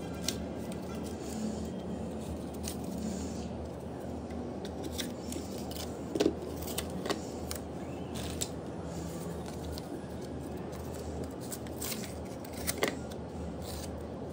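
Scissors snipping through packing tape on a small cardboard parcel, with scattered clicks and rustles of the cardboard being handled; the sharpest snaps come about six seconds in and again near the end, over a steady low background hum.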